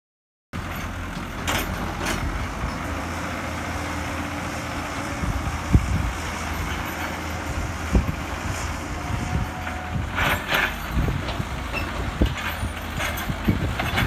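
JCB 3CX backhoe loader's diesel engine running steadily under load as its front bucket pushes and levels soil. Occasional sharp knocks come about six and eight seconds in, with a cluster of them around ten seconds in.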